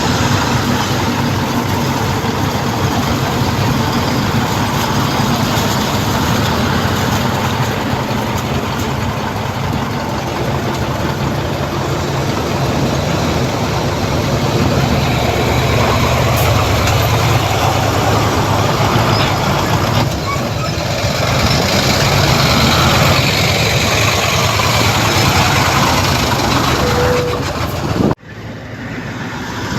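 Diesel engine of heavy earthmoving machinery running steadily with a low rumble. The sound breaks off abruptly near the end and comes back quieter.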